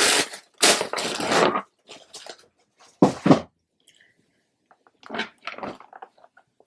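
Thin white wrapping sheet crinkling and rustling as it is handled and folded, then two short dull knocks about three seconds in, followed by faint light rustling.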